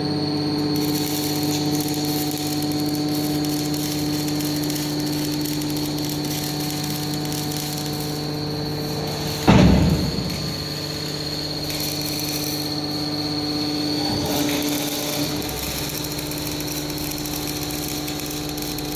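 Hydraulic scrap metal baler running, its pump unit giving a steady hum with a high whine. A single loud bang comes about halfway through, and a smaller knock follows a few seconds later.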